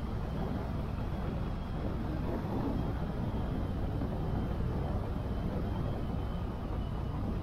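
Motorcycle riding at a steady speed, its engine running under a continuous low rumble of wind and road noise, with a faint high whine that creeps slightly upward near the end.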